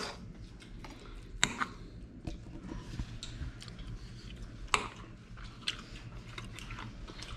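Close-up chewing and mouth sounds of a person eating, with a few sharp clicks of a metal fork, over a low steady hum.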